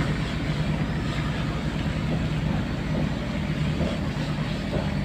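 Nissan RF10 V10 diesel engine in a new wooden skipjack fishing boat, running steadily with a low, even drone on its trial run.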